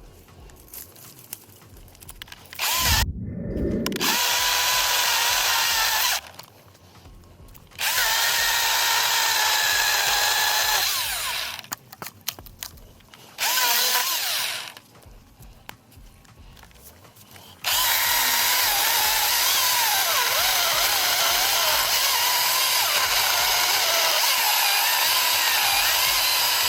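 Husqvarna 225i battery chainsaw cutting wood in four bursts, the last and longest running about nine seconds. The motor's whine wavers in pitch as the chain bites. A low thud comes early in the first burst.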